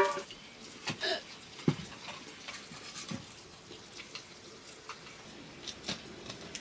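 Quiet mealtime sounds: a few scattered light clicks and taps of eating utensils and hands on metal plates, with a couple of faint short low sounds.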